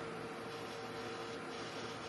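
Steady background hiss with a faint, even hum and no distinct events: room tone.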